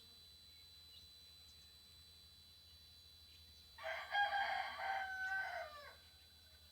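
A rooster crowing once, a call of about two seconds that drops in pitch at the end. Behind it runs a faint, steady high-pitched whine from a TriStar TS-MPPT-60 solar charge controller.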